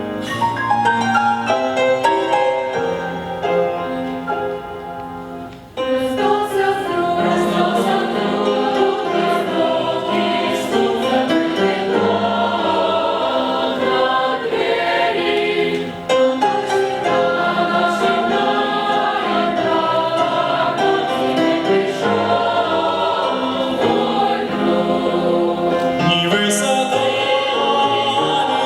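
A choir singing a song, softer for a few seconds before coming back in full about six seconds in.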